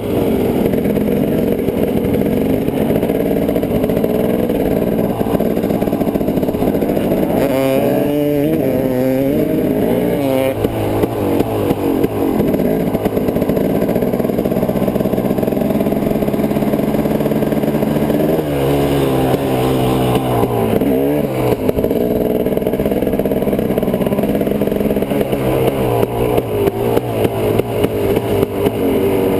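Off-road vehicle engine running at riding speed along a dirt trail. Its pitch climbs and drops with throttle and gear changes, once about a third of the way in and again about two thirds in.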